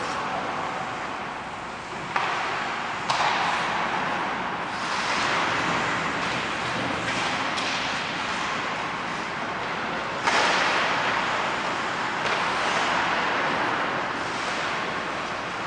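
Ice hockey play on the rink: a steady hiss of skate blades scraping the ice, broken by sudden knocks and thuds of sticks, puck and boards, sharpest about two, three and ten seconds in.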